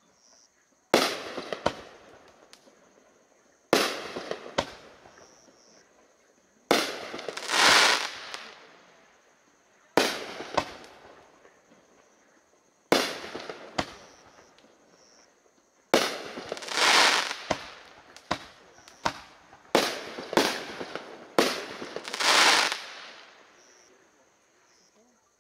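A 2-inch nine-shot shell cake firing. About every three seconds a shell launches with a sharp thump, and half a second to a second later it bursts in the air. Several of the bursts trail off in a noisy spray lasting about a second.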